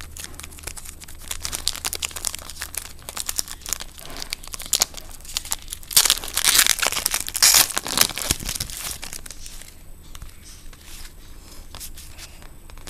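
Wrapper of a basketball trading-card pack crinkling and tearing as the pack is opened, with dense crackling that is loudest and busiest from about six to nine seconds in.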